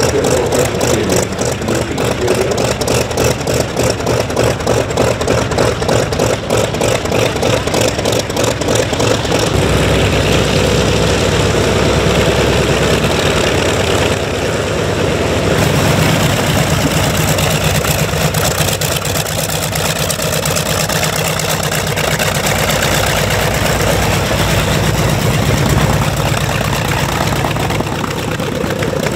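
Douglas EA-1E Skyraider's 18-cylinder Wright R-3350 radial engine running with a fast, pulsing beat at idle. About ten seconds in it picks up power as the aircraft taxis, then runs steadily with a deeper tone.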